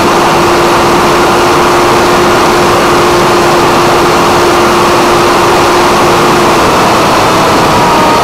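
Brushless electric motor and pusher propeller of a Multiplex Funjet RC plane whining steadily in flight, with heavy wind rush over its onboard camera's microphone. The whine's pitch dips slightly a little before the end.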